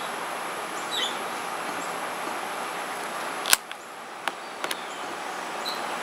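Handling a plastic shaker of grated Parmesan cheese: one sharp click about three and a half seconds in, then two or three lighter clicks as it is set down. Under it runs a steady outdoor hiss with a few faint chirps near the start.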